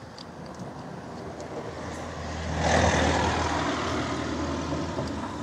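A motor vehicle passing by with a low engine drone, swelling to its loudest about three seconds in and then slowly fading.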